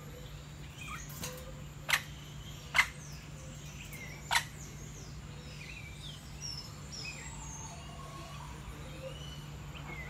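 Aviary birds chirping over a steady low hum, with three short, loud, sharp sounds about a second apart in the first half.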